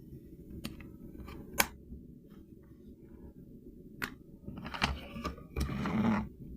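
Hands handling toy packaging: a few sharp clicks and taps, then a short rustling scrape near the end, over a steady low hum.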